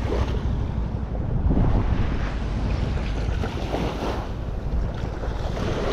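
Wind buffeting the microphone in an uneven rumble, over small waves lapping on a sandy shore.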